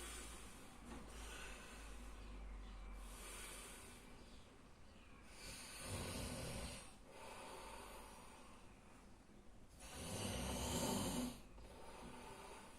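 A sleeping man snoring, with rasping breaths every few seconds. Two louder snores come about halfway through and near the end, with softer breaths between.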